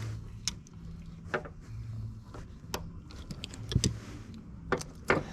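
Scattered sharp clicks and knocks of hand tools and plastic trim being worked on while a car seat belt's lower mount is taken out, with a cluster of them a little past the middle, over a steady low hum.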